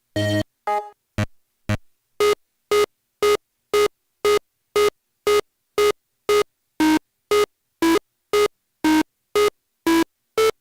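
Short, gated synthesizer notes from the Dubstep Producer app's synth module playing a step-sequenced pattern. A few uneven notes come in the first two seconds, then a steady run of notes at about two a second, with the pitch shifting from note to note.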